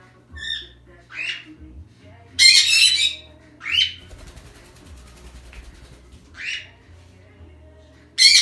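Pet parrots squawking: a run of short, separate calls, with a loud harsh screech about two and a half seconds in and another near the end.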